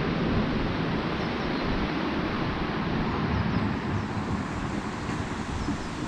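Steady rush of a shallow, rocky river running over stones, with a few faint high chirps.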